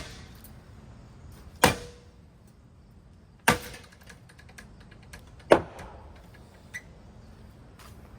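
A bat striking a hugger-style ceiling fan: hard single whacks about every two seconds, four in all, two of them followed by a short ring, and a lighter knock near the end.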